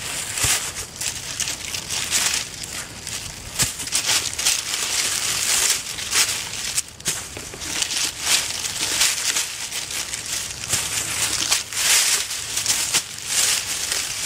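Dry, tangled watermelon vines and leaves rustling and crackling as a watermelon is twisted free and the picker handles melons and steps through the patch. The noise is uneven, with many short crunches.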